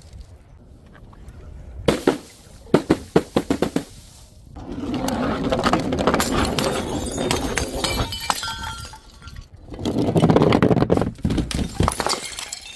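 Glass bottles breaking: a quick run of sharp clinking impacts about two seconds in, then two longer stretches of dense shattering and crunching glass.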